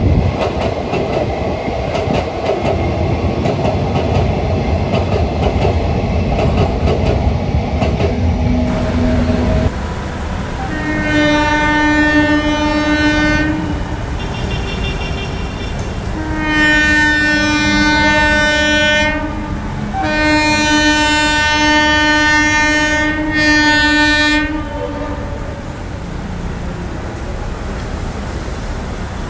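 Train running past on the rails with a rumble and clickety-clack. Then an Indian Railways electric locomotive's horn sounds in four blasts about halfway in: three long ones and a short last one.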